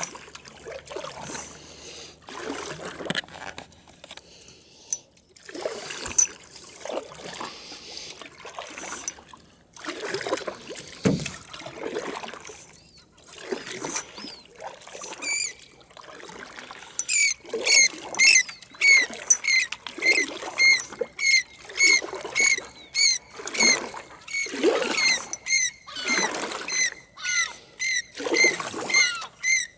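Oars dipping and pulling through calm lake water beside an aluminium rowboat, a splashing, swishing stroke about every one and a half to two seconds. About halfway through, a run of loud, high squeaks starts, two or three a second, louder than the strokes.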